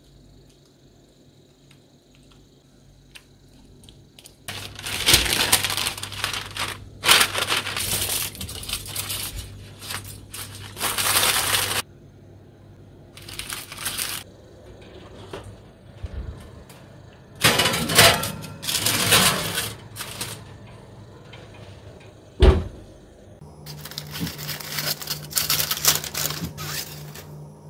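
Aluminium foil and baking parchment crinkling in repeated bursts as they are pressed over and crimped around a glass baking dish, with one sharp knock a little past the middle. Near the end the foil crinkles again as it is lifted off the dish.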